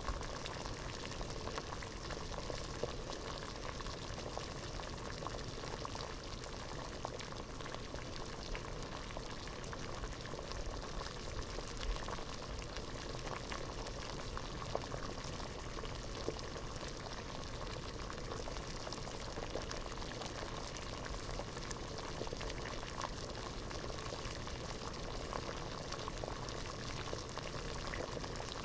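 Water at a rolling boil in a pot, bubbling steadily with a dense stream of small pops and gurgles.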